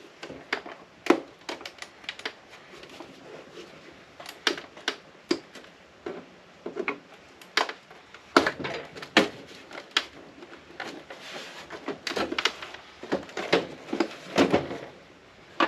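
Irregular clicks, taps and knocks of a hand tool and the hard plastic case and parts of an APC battery backup unit being handled and worked apart, with a busier run of louder knocks in the second half.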